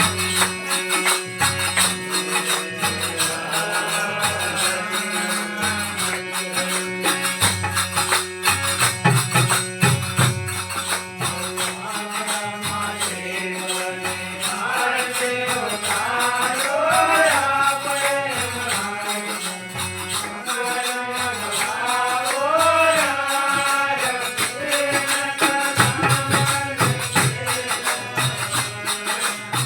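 Devotional aarti song in folk style: fast, steady jingling percussion over a repeating bass line, with a singing voice carrying the melody from about halfway through.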